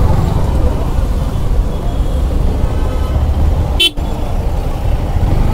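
Congested road traffic heard from a motorcycle: a steady low rumble of engines, with a short horn toot a little under four seconds in.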